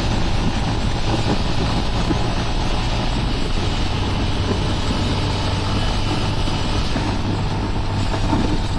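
Honda Monkey single-cylinder motorcycle running at a steady cruise with road and wind noise on the rider's microphone.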